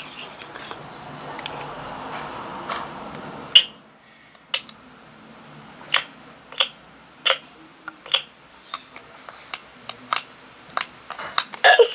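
Soft rustling for about three and a half seconds, then a string of sharp plastic clicks and taps, roughly one a second, from spoon-feeding a toy baby doll.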